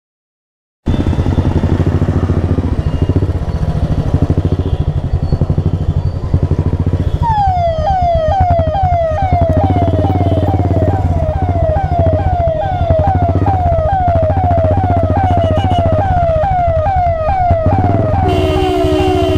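Motorcycle engine running close by. From about seven seconds in, an ambulance siren behind it sounds in a fast repeating falling wail, about two sweeps a second, and near the end a steady horn joins in.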